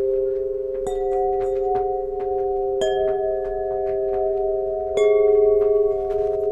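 Solfeggio tuning pipes (tuned metal chime tubes) ringing: three strikes, about a second in, near three seconds and about five seconds in, the last the loudest. Each strike adds to several long overlapping tones that sustain and blend.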